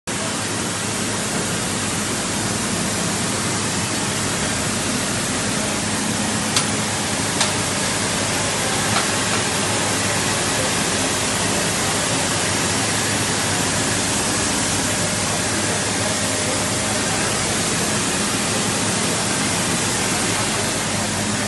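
Steady, loud hiss of steam escaping from a Nilgiri Mountain Railway steam locomotive standing at the coaches, with a low steady hum under it. Three short metallic clicks come about seven to nine seconds in.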